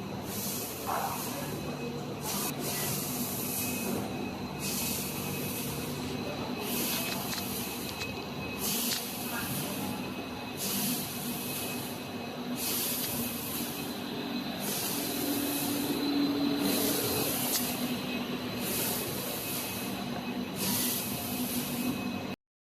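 Pneumatic production machine running, a steady hum with a hiss of compressed air released about every two seconds in a regular cycle. The sound cuts off suddenly near the end.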